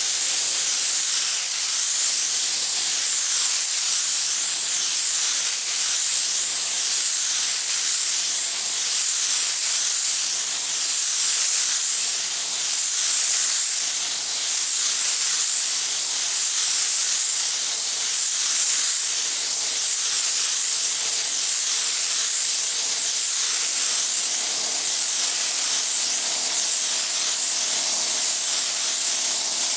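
Spray gun spraying flat clear coat: a steady, high hiss of air and atomised paint that swells and fades about every two seconds with each pass.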